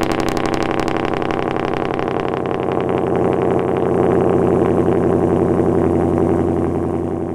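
Ford F-150 engine just after a cold start, idling steadily with its active exhaust valves open, so the exhaust note comes loudly through the twin tailpipes.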